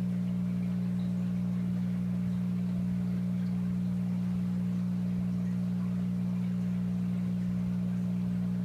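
Steady low electrical hum from aquarium equipment, two low pitches held unchanged throughout with a fainter higher buzz.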